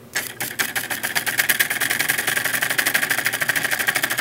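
Homemade solenoid engine built from a doorbell solenoid, its plunger clicking in once per turn of a CD flywheel. It starts just after switch-on and speeds up from a few clicks a second to a fast, even clatter of about a dozen clicks a second.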